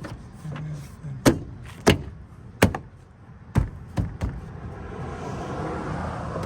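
Plastic door trim panel being struck by hand against the car door: about half a dozen sharp knocks at irregular spacing as the panel's push clips snap into the door.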